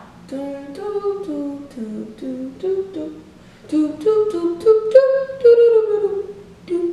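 A woman humming a wordless tune to herself, stepping through a run of short notes with a longer, slightly falling note near the end.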